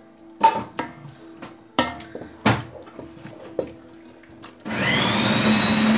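A spoon knocks against a large metal pot several times as thick pepper puree is stirred. Near the end an electric food processor starts up, its whine rising as it gets to speed, then runs loudly, chopping roasted red peppers.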